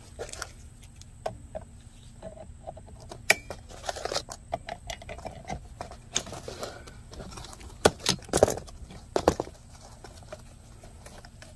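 Adjustable wrench and locking pliers clicking and clanking on the removed mechanical fuel pump and its steel fuel-line fitting while the fitting is worked loose. Irregular sharp metal knocks, the loudest coming in a cluster about eight to nine seconds in.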